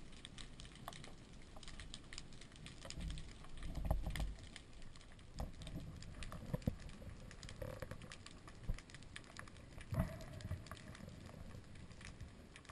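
Underwater recording: a faint, steady crackle of many small clicks, with a few dull knocks and low rumbles about three to four seconds in and again near ten seconds.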